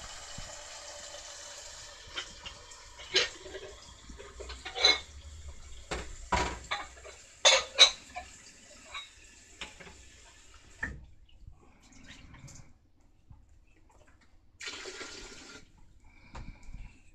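Water running with a steady hiss that cuts off suddenly about eleven seconds in, with several sharp knocks and taps over it; a second short run of water comes near the end.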